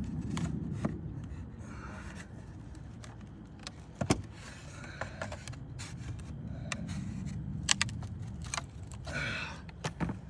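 Scattered sharp clicks, taps and brief scrapes of hand tools working at wooden shakes and the metal fasteners that hold them, over a steady low rumble.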